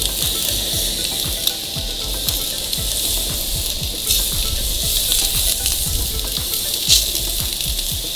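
Ribeye steaks searing on hot grill grates over a charcoal fire: a steady sizzling hiss with scattered pops and crackles, a couple of them louder.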